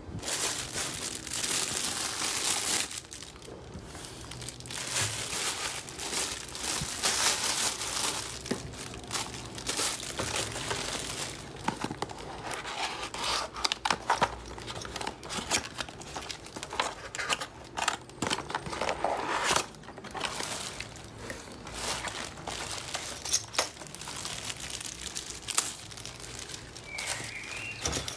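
Plastic packaging and cardboard being handled during unboxing: irregular bursts of crinkling cellophane and rustling, scraping cardboard box flaps.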